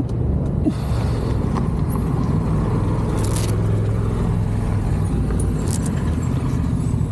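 Motorcycle engine running steadily, with a few light clicks and rattles.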